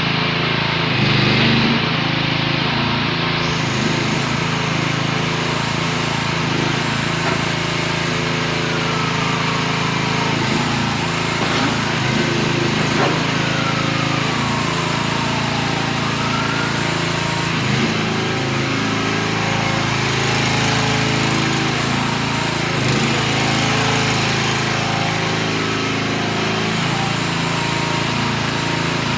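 The mini excavator's 13.5 hp Briggs & Stratton gasoline engine runs steadily at an even pitch. A few faint whines slide in pitch partway through, and there are occasional light knocks.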